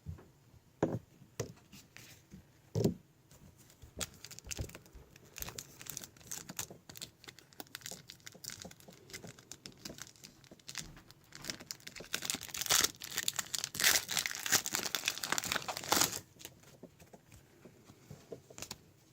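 Trading card packs being torn open, the wrappers crinkling and rustling amid scattered clicks as cards are handled; the tearing and crinkling is densest and loudest for a few seconds about two-thirds of the way through.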